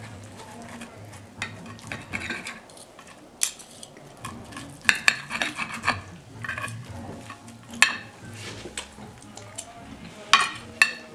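Steel knife and fork scraping and clinking on a ceramic plate while cutting up a fried breakfast. A handful of sharp clinks stand out over the softer scraping, the loudest about eight and ten seconds in.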